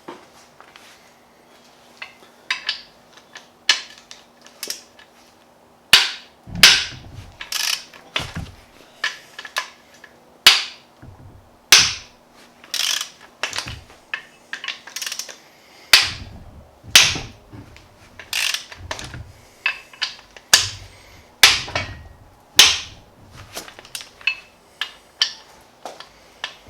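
Hand tools and metal engine parts clanking and knocking during an engine teardown: a run of irregular sharp metallic clicks and clanks, some ringing briefly. They are sparse at first and come thick and loud from about six seconds in.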